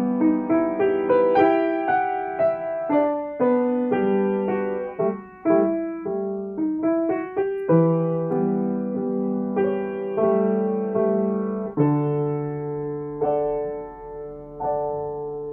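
Acoustic upright piano played by a young student: a melody of struck notes ringing and decaying over lower notes, moving to longer held notes in the last few seconds.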